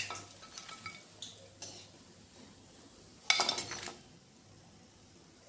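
Perforated steel skimmer clinking and scraping against an iron kadhai as fried pakoras are lifted out, with a louder half-second clatter about three seconds in as they go onto a plate.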